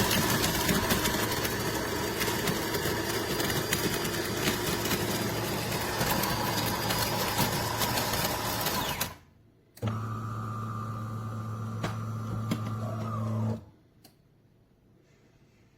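De'Longhi Rivelia's built-in grinder grinding coffee beans, a dense crackling whir for about nine seconds that stops suddenly. After a brief pause the machine hums steadily for about four seconds, then cuts off.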